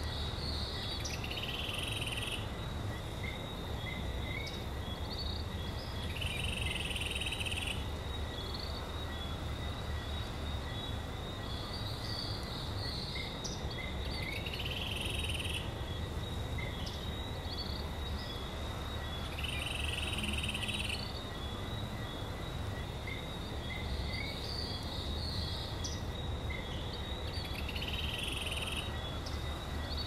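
Rainforest ambience: a steady rush of falling water under constant high-pitched insect trilling, with a short animal call, frog-like, repeating about every six to seven seconds.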